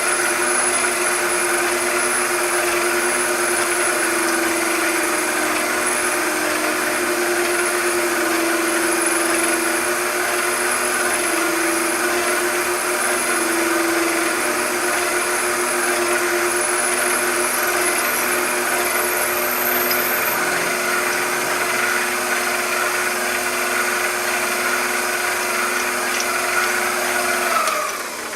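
A machine tool's electric motor and spindle running steadily with a constant hum, then switched off near the end and spinning down, its pitch falling.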